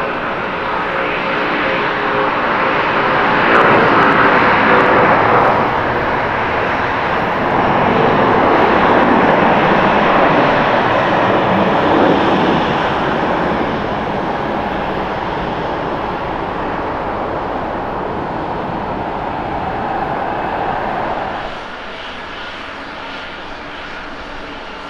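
Korean Air Airbus A330-300's twin turbofan engines at takeoff thrust: loud jet noise with a buzzing hum at first, swelling twice as the airliner rolls down the runway and climbs away. About 21 seconds in it drops suddenly to a quieter, steady engine noise from a Lufthansa Boeing 747-8 on the runway.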